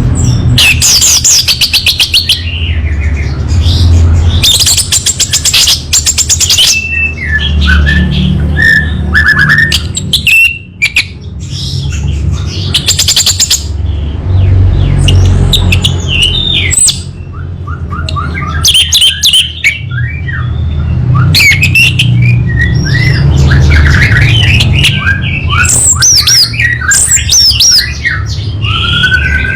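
Orange-headed thrush (anis merah) singing a long, varied song of rapid high trills, slurred whistles and chirps, with short pauses, over a low steady rumble.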